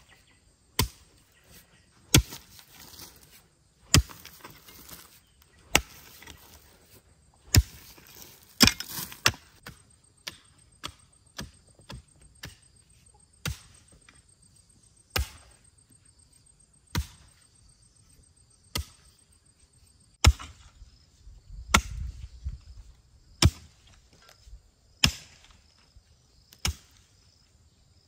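Chopping strokes, sharp single blows at a steady pace of about one every second and a half to two seconds.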